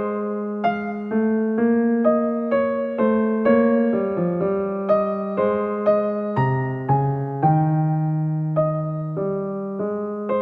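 Background music: a slow, gentle electric piano melody, notes struck about twice a second and left to ring.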